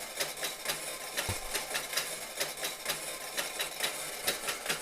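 Clockwork spring motor and tin gears of a Marx windup reversing tractor running in forward, giving a steady rapid clatter of ticks.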